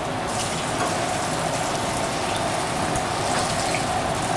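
Potato-and-nettle patties sizzling in clarified butter in a frying pan on low heat as they are turned over, with the steady hum of a kitchen extractor fan running underneath.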